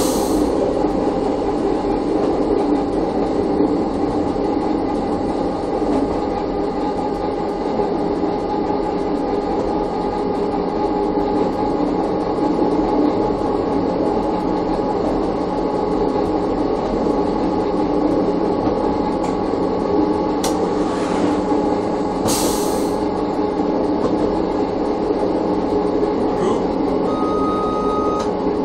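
Chemins de fer du Jura ABe 4/4 641 electric railcar running along the track, heard from inside its driving cab: a steady rumble of wheels and running gear with a few steady humming tones. Two short bursts of noise come about two-thirds of the way in, and a brief high tone sounds near the end.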